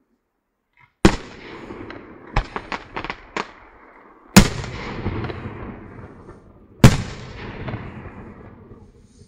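Aerial firework shells bursting: three loud bangs a couple of seconds apart, each followed by a long rolling echo that fades away. Between the first and second bang comes a quick run of about five smaller sharp pops.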